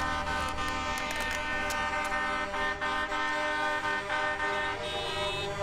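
Many vehicle horns honking together in long, overlapping held blasts of different pitches, some stopping and new ones joining, over a low rumble of idling engines.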